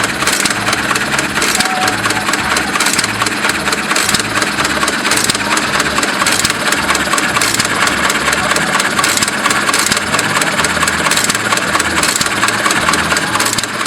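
An engine running steadily, with a low pulse repeating about twice a second.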